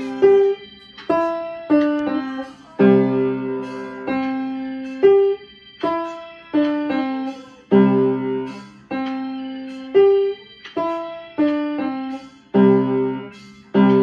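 Kimball upright piano played by a beginner: single struck notes ringing and fading, with a fuller chord in the bass about every two and a half seconds.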